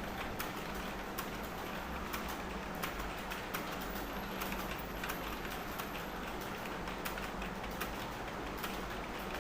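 Computer keyboard keys clicking irregularly as someone types fast, over a steady low hum.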